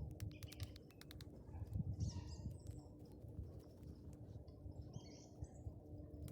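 Birds chirping in two short bursts, about two seconds in and again about five seconds in, over scattered sharp crackles that are thickest in the first second and a half and a low rumble.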